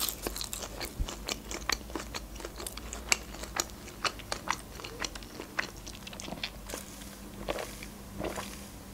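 Close-miked chewing of fresh parsley and lahmacun: many short crisp crunches and wet mouth clicks. Near the end, a brief sip through a straw.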